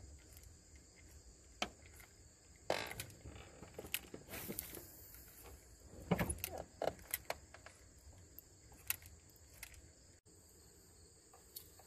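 Steady high-pitched chorus of crickets, with scattered sharp clicks and short rustles from handling a spinning rod and reel, busiest from a few seconds in to about seven seconds.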